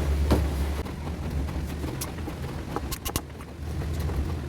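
Scattered clicks and light knocks of small metal parts and tools as a stand fan motor is taken apart, a few in quick succession about three seconds in, over a steady low hum.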